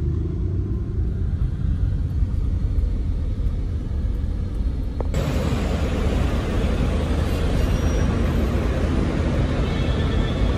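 Low, steady rumble of a moving car heard from inside the cabin. About halfway it cuts abruptly to a steady, brighter hiss of outdoor traffic and bustle.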